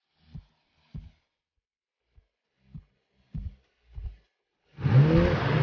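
A few soft, low thumps in an uneven rhythm, then near the end a loud engine bursts in, running and revving with a rising pitch.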